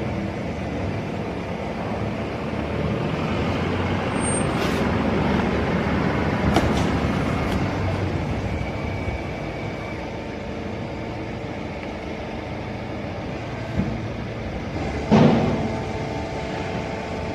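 Horizontal hydraulic baling press running on chopped cardboard, with a steady machine drone throughout. Sharp metallic clanks ring out about six seconds in and again near the end.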